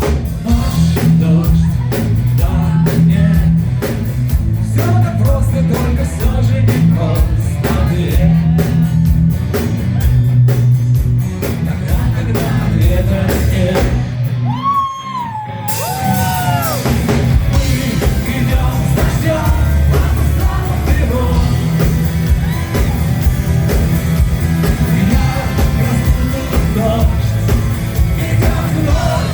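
Rock band playing live with a singer, heavy bass and drums under the vocals. About halfway through, the band drops out for a moment, then comes back in with a sliding sung line.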